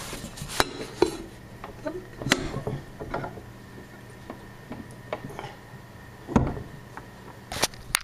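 Handling noises as things are moved about on a wooden table: scattered knocks and rubs, with the loudest thump about six and a half seconds in and a couple more near the end.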